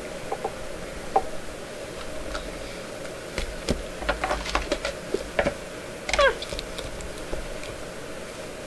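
Cardboard shipping box handled on a desk: scattered knocks, taps and rustles, most of them in the middle of the stretch, over a faint steady hum.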